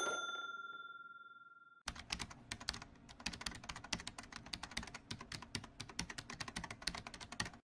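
Intro sound effects: a bell-like ding fading out, then, from about two seconds in, rapid computer-keyboard typing clicks.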